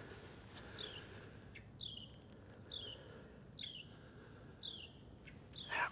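A small bird calling, repeating a short downward-slurred whistled note five times, about a second apart.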